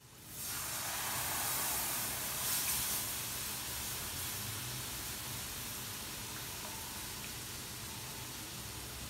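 Milk poured into a hot pan of butter-fried flour, hissing and sizzling as it hits: the hiss rises sharply about half a second in, is strongest for the first couple of seconds, then eases to a steady sizzle as the white sauce is stirred.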